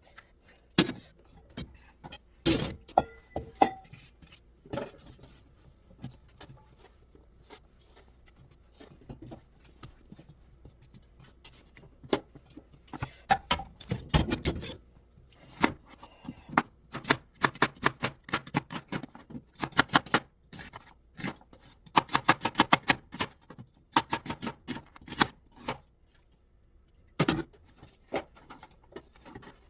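Kitchen knife cutting on a cutting board, a series of sharp knocks that come loosely at first and then in quick runs of strokes.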